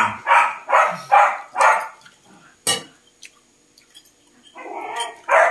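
A dog barking repeatedly, about five barks in quick succession over the first two seconds, followed by a single sharp click.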